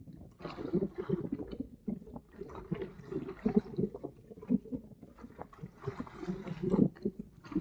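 Water slapping and gurgling against the hull of a 1965 Sunfish sailboat under way, in irregular splashes, mixed with wind rumbling on the microphone.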